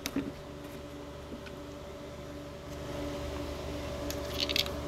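Hands working a propane fitting by hand, making a few small clicks and then a short scratchy rustle about four seconds in, over a steady mechanical hum.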